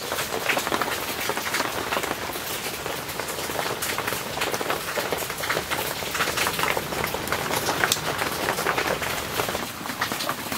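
Steady rain falling, an even patter of many small drops.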